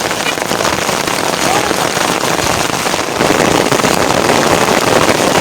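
Heavy rain falling, a dense crackling patter of drops on a surface, getting louder about three seconds in.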